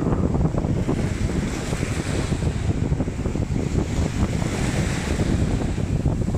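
Small sea waves washing onto the shore, with wind buffeting the phone microphone in a steady low rumble; the wash of the water swells twice.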